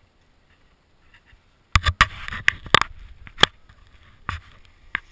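After a near-silent start, a run of sharp knocks and clacks with some scraping begins a little under two seconds in. It is close to the microphone: a burst of several knocks, then single knocks about every half second to a second.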